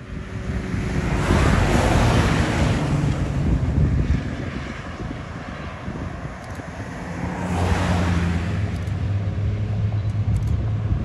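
Small diesel switcher locomotive running with a steady low engine hum as it approaches slowly. Two swells of rushing wind noise on the microphone, about two seconds in and again near eight seconds.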